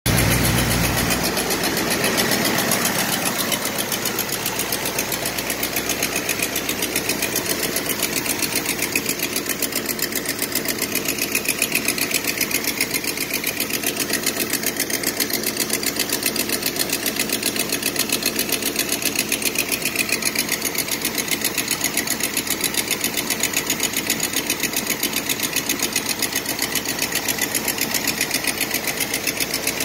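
Carbureted V8 engine idling steadily with an even, fast rhythm, a little louder for the first couple of seconds.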